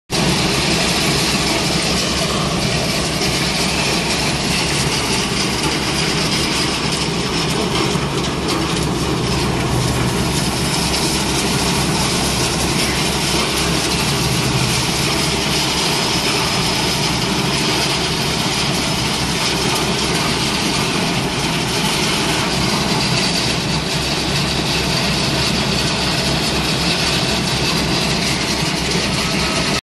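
JingGong JG100SF rail excavator with its ballast vibrating screen attachment running: a loud, steady engine drone with the mechanical noise of the working machinery over it.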